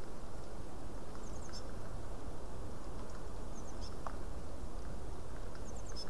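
Faint, high, thin calls of tits: three short clusters of quick notes about two seconds apart, over a steady low rumble and hiss.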